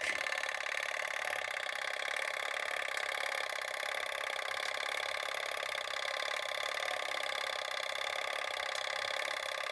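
Simplex coded fire alarm pull station's code-wheel gear mechanism running after the handle is pulled: a steady mechanical whirring with fast clicking as the station sends its code.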